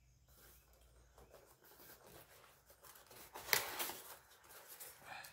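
Faint rubbing and scraping of a long cardboard shipping box being handled and opened at its end, with one brief louder burst of cardboard noise about three and a half seconds in and a few smaller ones after it.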